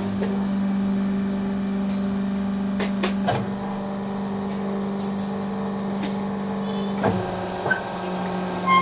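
Electric motor and hydraulic pump of a fly ash brick press running with a steady hum as the hydraulic control valve is worked, with a few sharp knocks from the machine, the clearest about three seconds in and about seven seconds in.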